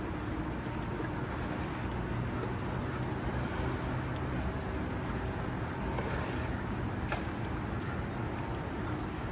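City street traffic: a steady rumble and hum of vehicles, with one short click about seven seconds in.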